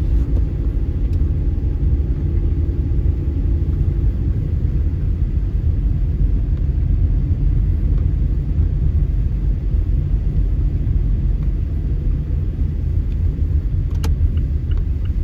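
Steady low rumble of a car driving, engine and tyre noise heard from inside the cabin, with one sharp click near the end.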